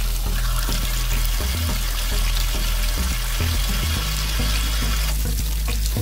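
Water rushing and splashing out of an RV tank water heater as it is drained, a steady hiss that thins out about five seconds in.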